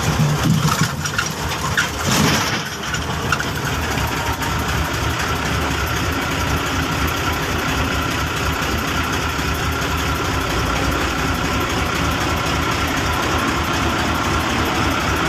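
Heavy engine of the log-handling machinery or logging truck running steadily, with a few short knocks in the first couple of seconds.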